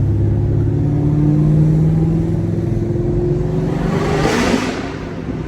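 Chevrolet Camaro SS 1LE's naturally aspirated 6.2-litre V8 pulling under load, its note slowly rising in pitch, then a short rushing burst about four seconds in as the throttle lets off and the sound drops away.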